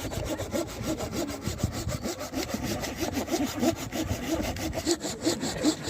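Wood being sawn by hand, a steady run of quick, even rasping strokes.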